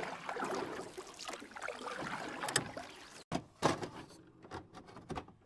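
Wind buffeting the microphone with water noise over shallow sea for about three seconds, then an abrupt cut. After it comes a string of short sharp clicks and swooshes, the loudest just after the cut.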